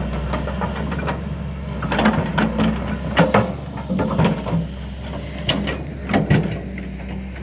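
Excavator's diesel engine running steadily, with repeated short knocks and clatters over it.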